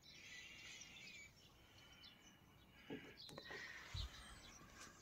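Near silence: faint outdoor ambience with faint bird chirps, and a couple of faint knocks about three and four seconds in.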